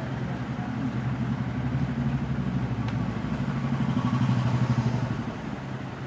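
An engine running with a low, pulsing hum, growing louder to a peak about four to five seconds in, then easing off.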